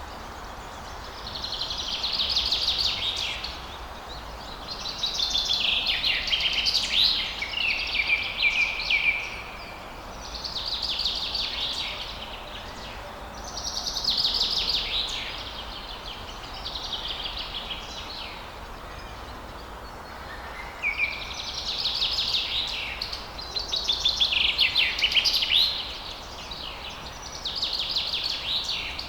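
Songbirds singing: about nine phrases of rapid trilled notes, each a couple of seconds long, following one another with short gaps, over a faint steady low background rumble.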